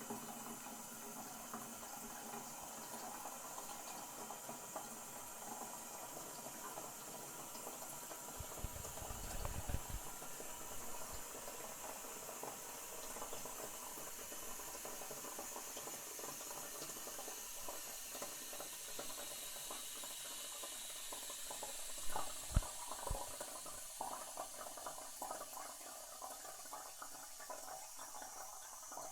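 Toilet cistern refilling, water hissing steadily through the fill valve, with a few low knocks about nine seconds in and again around twenty-two seconds in.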